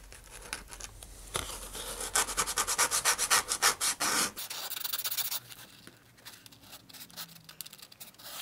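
Hand sanding: a small model-rocket canopy part rubbed back and forth on sandpaper wrapped around a body tube, shaping it to the tube's curve. The strokes are quick and even, loudest in the first half and fainter after about four and a half seconds.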